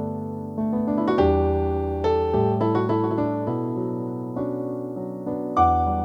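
Yamaha NP-11 portable digital piano played with its piano voice: a melody over chords and bass notes, each note struck and left to fade.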